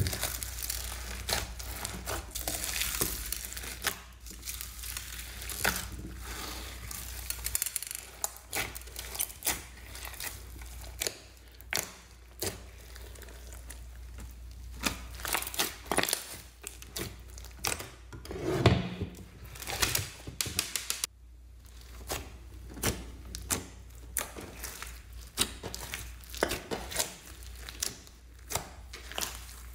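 Hands squishing, stretching and folding slime mixed with foam beads and sequins in a glass dish: a continuous run of crackles, sticky pops and clicks, with one louder squish a little past the middle.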